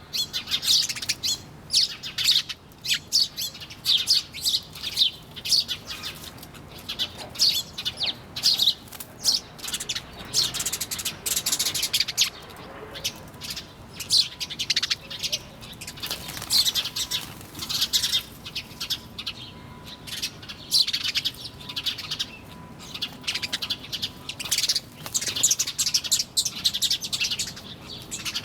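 Many small birds chirping at once: a busy, continuous stream of short, high chirps and tweets overlapping one another.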